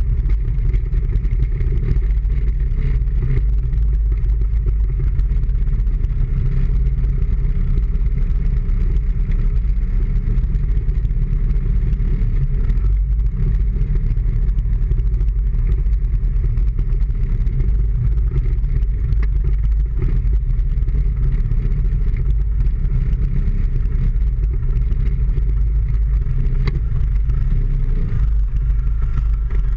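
Motorbike riding slowly through city traffic: its engine runs steadily, with a constant low rumble of the ride on the front-mounted camera's microphone.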